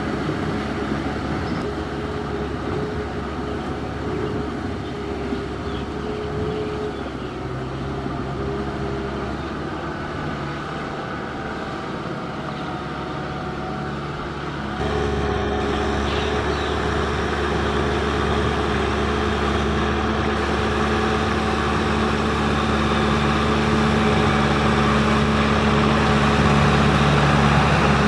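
Tractor engine running steadily. About halfway through it cuts abruptly to a louder engine note that slowly grows.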